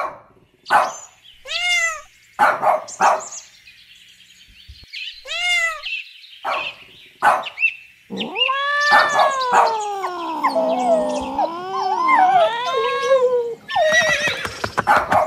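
Recorded animal calls: a dog barking in short single barks, with two cat meows between them, then one long wavering horse whinny from about eight seconds in. Near the end comes a quick run of dog sounds.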